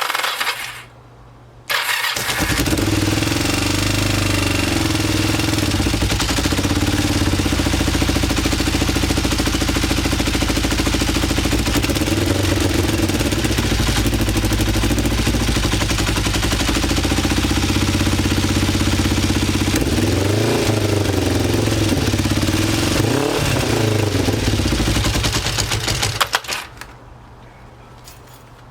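Kawasaki Ninja 500 parallel-twin engine cold-starting on a jump from a car battery. After a short first burst it catches and idles steadily, its idle freshly turned down. Two quick throttle blips near the end, then it is shut off.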